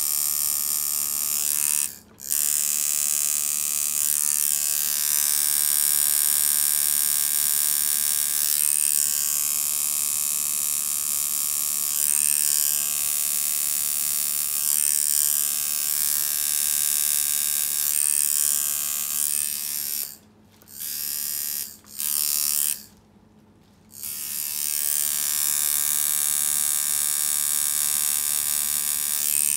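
Custom-built coil tattoo machine buzzing steadily as its needle drives ink into skin. It cuts out briefly about two seconds in and stops and restarts several times near the end, the longest pause lasting about a second.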